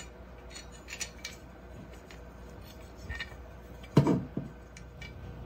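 Small parts and a bed-support plate being handled: a few light metallic clicks and clinks, then a louder knock about four seconds in.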